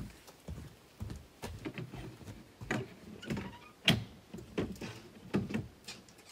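Irregular clicks, knocks and rustling of a person handling a wooden trail-register box, with the sharpest knock a little past the middle.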